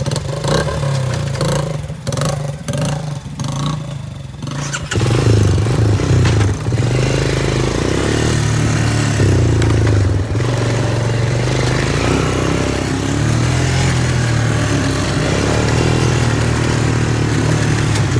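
Off-road vehicle engine running under way. It is choppy and uneven with clattering for the first few seconds, then louder and steadier from about five seconds in, its pitch rising and falling with the throttle.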